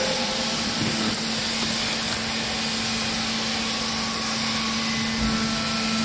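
A machine running steadily, with a constant low hum under an even hiss.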